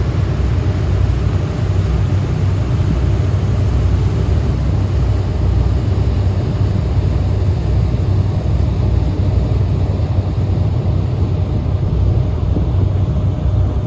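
Tour boat's engine running steadily, a loud, even low drone.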